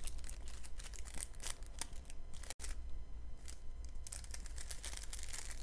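Small plastic bags of diamond-painting drills crinkling and rustling as they are handled and sorted, in short irregular rustles over a steady low hum, with a brief gap about two and a half seconds in.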